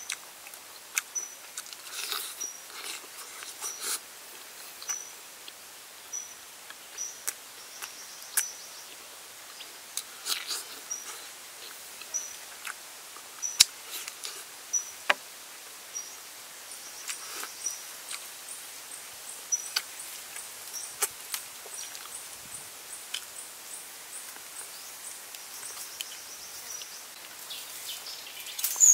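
Chewing and lip-smacking clicks of someone eating roast chicken, at irregular intervals. Under them is an outdoor background of a short high chirp repeated about once a second, with a faster, higher ticking call joining about halfway through. A louder noise comes at the very end.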